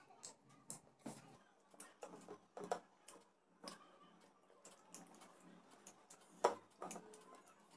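Irregular small clicks and taps of eating by hand: fingers working through food on ceramic plates and picking apart fried fish, with a sharper click about two and a half seconds in and another near the end.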